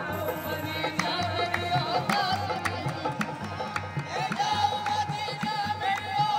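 Background music: a wavering melody over a steady, evenly repeating low drum beat.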